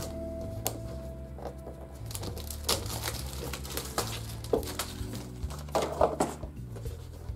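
Cube packaging being handled and opened by hand: scattered light clicks and rustles, over a soft background music bed.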